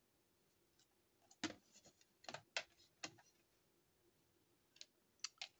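Near silence with a handful of faint, short clicks and taps as a plastic watercolour palette box is handled and set down on a table.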